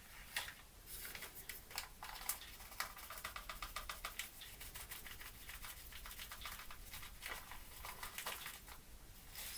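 Faint, quick scratching and clicking of a spoon digging baking powder out of a paper sachet, with the paper rustling.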